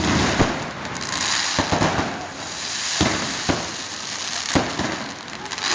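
Fireworks salute going off: a steady crackle of bursting shells, broken by sharp bangs about every half second to a second.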